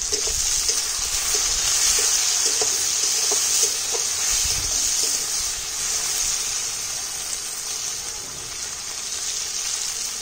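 Chopped onion, tomato, brinjal and green chillies sizzling in hot oil in a kadai, a steady hiss. It is stirred, with a few light knocks in the first few seconds.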